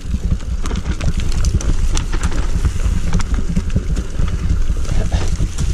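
Mountain bike riding down a rocky dirt trail: tyres rolling over stones and the bike rattling with frequent sharp knocks and clicks, over a heavy low rumble of bumps and wind on a handlebar-mounted action camera.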